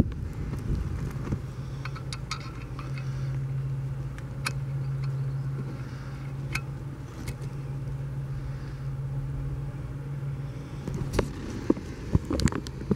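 Light metallic clicks and taps as bolts are fitted by hand into a marine water pump and its gasket, with a few louder knocks near the end. Under them runs a steady low hum from a running motor, which fades before the end.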